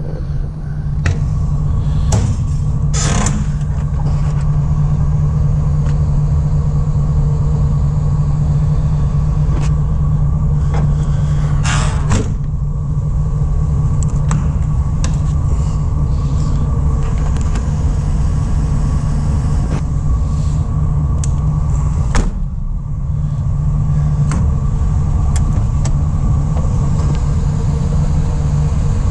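A 2004 GMC Savana 3500's 6.0-litre V8 idles steadily. Over it come scattered metallic clicks and knocks, a couple of short scrapes, and a heavier knock near the end, from the box body's doors and locks being handled.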